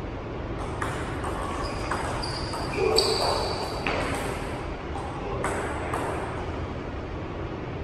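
Table tennis ball clicking off the bats and the table during play: a series of sharp, separate clicks.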